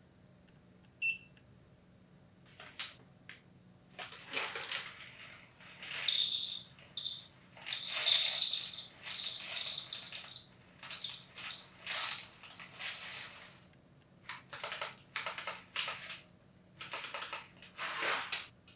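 Whole coffee beans poured from a bag into a small glass jar, rattling against the glass in bursts, thickest in the middle and then in short small additions near the end as the dose is topped up to 22 g. A short electronic beep from the digital coffee scale sounds about a second in.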